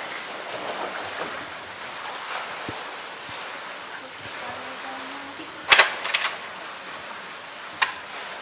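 Outdoor enclosure ambience: water from the pool and faint voices over a steady high hiss, broken by a quick cluster of sharp knocks about six seconds in and one more near the end.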